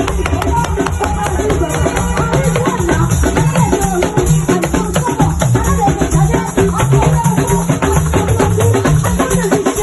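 Lively music with rattles or shakers and drums playing a steady, busy rhythm.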